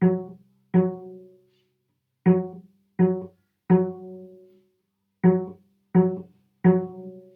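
Cello played pizzicato: the D string plucked while three left-hand fingers stop it, giving a G. The same low note is plucked eight times in a steady beat, grouped in threes with a short rest after each group, each note ringing briefly and dying away.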